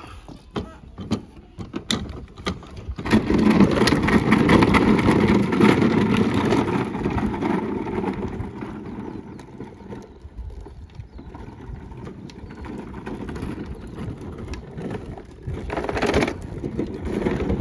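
Hard plastic wheels of children's ride-on toy tractors rolling over rough tarmac: a rumbling grind that starts about three seconds in, loudest for several seconds, then eases. A few light knocks come before it.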